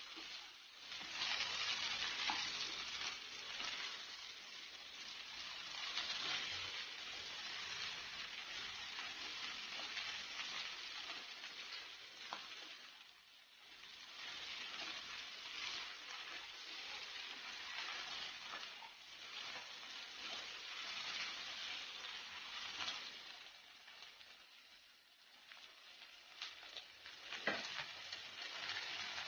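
Malabar spinach, potatoes and taro frying in oil in a kadai with a soft, steady sizzle, while a wooden spatula stirs the leaves through, scraping against the pan. A sharp knock of the spatula near the end.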